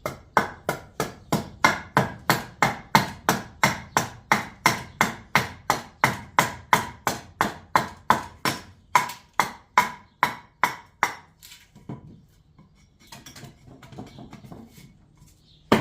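Axe chopping into a wooden spoon blank on a chopping block, cutting in the spoon's crank. It strikes quickly and evenly at about three a second for some eleven seconds, each blow a sharp knock with a short ring, then a few softer scattered taps and a single sharp knock at the very end.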